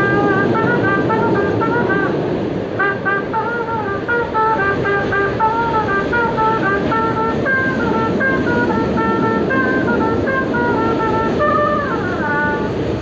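A trumpet playing a quick, wandering melody live inside a moving subway train, over the train's steady rumble. The playing breaks off briefly about two seconds in, and a note slides down near the end.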